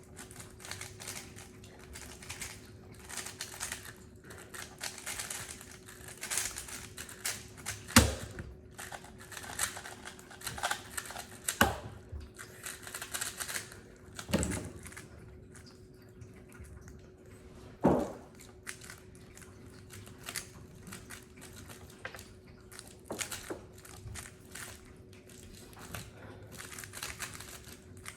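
Speed cube being turned rapidly: a dense, irregular run of quick plastic clicks and clacks, with several louder knocks scattered through.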